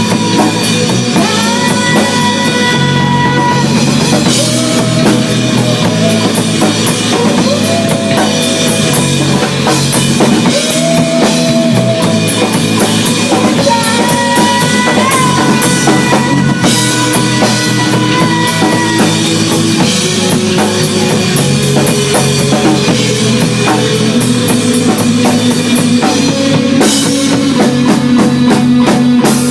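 Instrumental stretch of a rock song: drum kit and guitar playing steadily, with long held melody notes over them.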